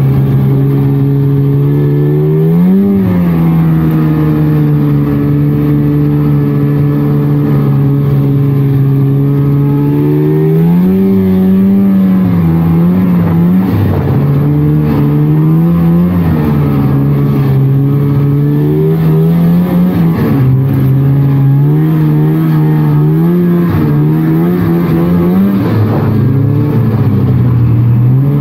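1999 Polaris trail snowmobile's two-stroke engine running under way, mostly holding a steady pitch with brief rises and falls every few seconds as the throttle is eased on and off.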